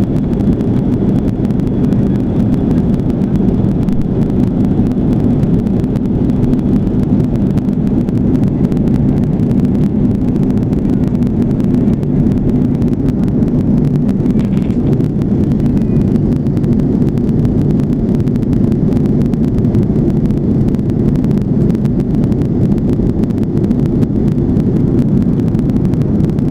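Steady, loud drone of an aircraft's engines heard from inside the cabin in flight, unchanging throughout, with a low hum.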